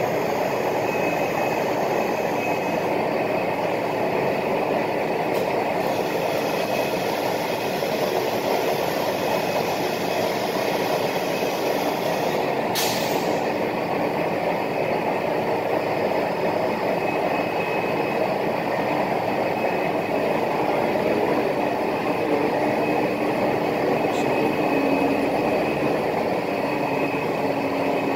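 CNC router running steadily while machining: a continuous mechanical noise with a faint high steady whine. There is a sharp click about thirteen seconds in.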